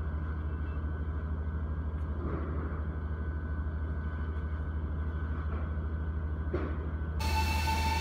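Steady low hum with a fast even throb from commuter trains standing at a station platform. About seven seconds in it cuts to a louder train sound with a hiss and a steady high whine.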